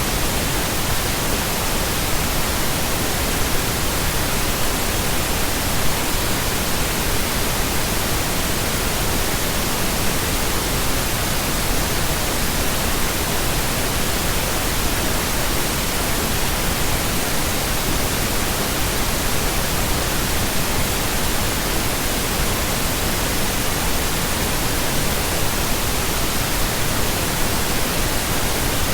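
Continuous pink noise: an even, steady hiss spread across all pitches, with no changes or breaks.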